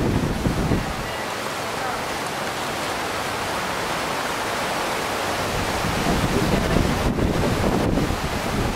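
Rushing whitewater of a river slalom course, a steady roar. Wind buffets the microphone in low rumbles at the start and again from about six seconds in.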